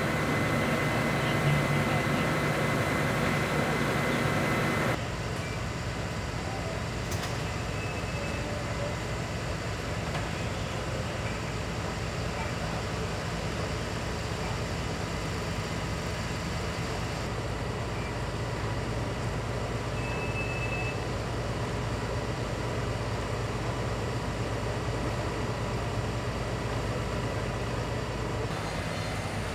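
Fire engine running at a fire scene, its engine and pump giving a continuous steady drone that steps down abruptly about five seconds in. Two brief faint high beeps sound over it, one early and one past the middle.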